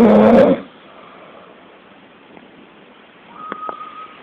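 A loud, deep snore with a wavering pitch, cut off about half a second in. Near the end come a faint short high beep and a few light clicks.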